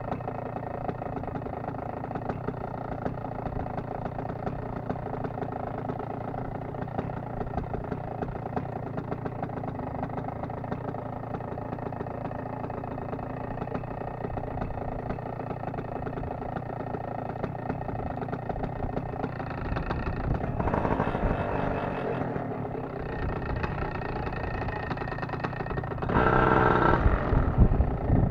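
Paramotor engine idling steadily, its revs rising briefly about twenty seconds in and again more strongly near the end.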